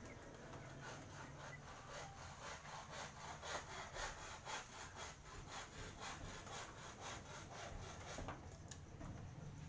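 Hand saw cutting wood in steady back-and-forth strokes, about two a second, stopping shortly before the end.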